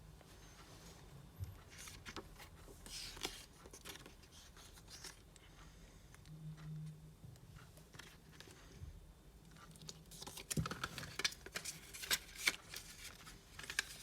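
Packaging handled by hand while an item is unboxed: scattered rustling, scraping and small clicks, busiest in the last few seconds.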